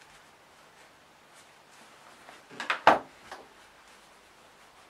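Faint handling of a fabric glasses case, broken a little past halfway by a quick run of three or four sharp knocks on the tabletop.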